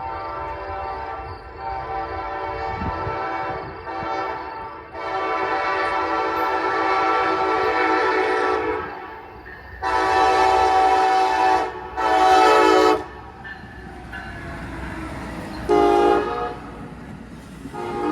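Amtrak passenger locomotive's air horn sounding a series of blasts as the train approaches. It gives two long blasts first, then shorter ones about ten seconds in, with a steady rumble of the train underneath.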